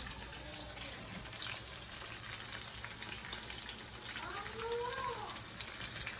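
Fish frying in hot oil in a pan, a steady sizzle. A short voice-like call rises and falls about four seconds in.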